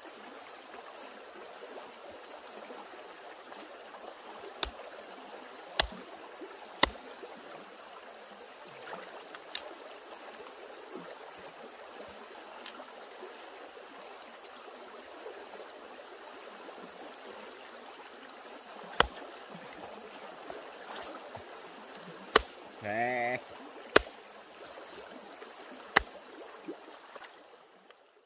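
Shallow stream running over stones, with sharp, scattered knocks of a machete chopping meat on a wooden block, about seven in all.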